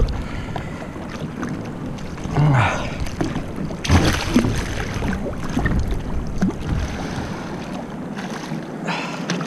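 Water splashing and sloshing beside a paddleboard as a hooked papio (young trevally) thrashes at the surface. A loud splash comes about four seconds in, over steady wind on the microphone.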